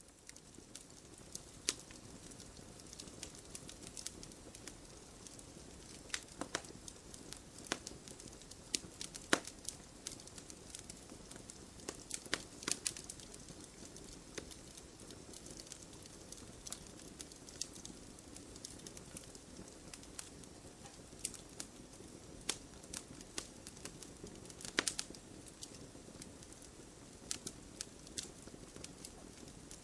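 Campfire burning with a steady low hiss and irregular sharp crackles and pops from the burning wood, a few louder snaps among them.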